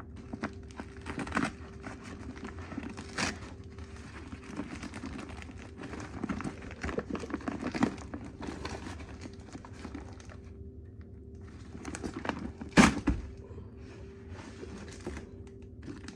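Old cardboard packaging being torn and worked open by hand: irregular crinkling, tearing and rustling, with one sharp knock about three-quarters of the way through.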